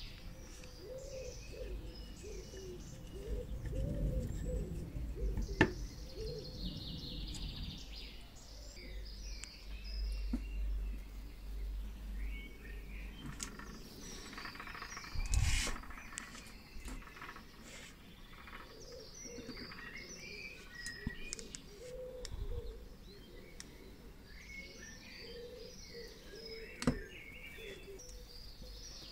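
Small birds chirping and singing in the background, with a low rumble and a few sharp taps, the loudest about halfway through and another near the end.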